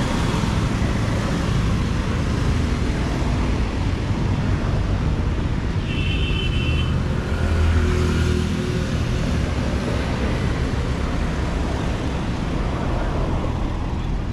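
Steady city road traffic with engines and tyre noise, one vehicle louder as it passes about eight seconds in. A brief high-pitched tone sounds about six seconds in.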